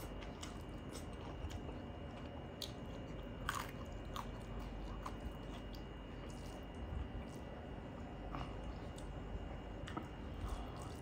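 Close-up chewing and biting of a mouthful of rice and curry, with scattered small crunches and clicks; the sharpest click comes about three and a half seconds in.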